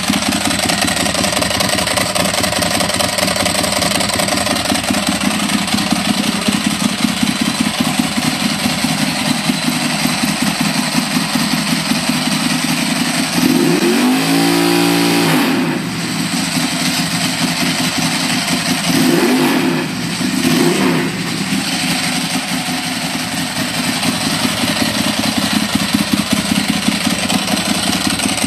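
Ducati Monster's L-twin engine through a Termignoni exhaust, idling steadily. It is blipped once about halfway in, rising and falling in pitch, then given two shorter, smaller blips a few seconds later before settling back to idle.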